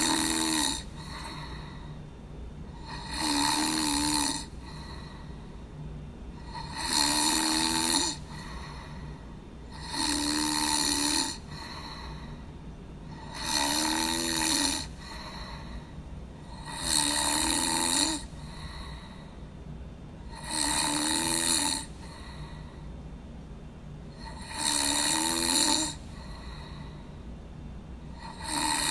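A person snoring in a steady, regular rhythm: nine snores, one about every three and a half seconds, each lasting about a second with a low rattle.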